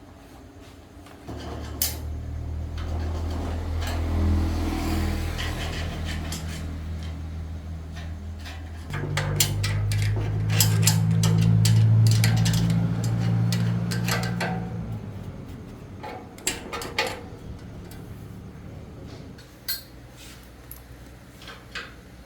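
A machine motor hums steadily, jumps to a higher, louder pitch about nine seconds in, then winds down and stops. Sharp metallic clinks of tools and metal parts follow near the end.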